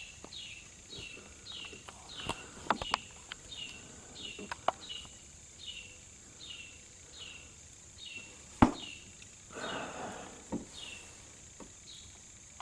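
Faint chirping, short high chirps repeated about twice a second, each falling in pitch, over a steady high hiss, with scattered light clicks and one sharper click about eight and a half seconds in.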